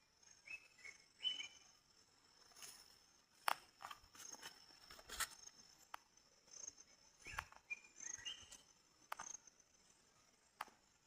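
Quiet outdoor ambience: insects keep up a steady high-pitched drone while a bird gives two short bursts of chirps, one near the start and one about two-thirds through. Several sharp knocks and clicks are scattered through it.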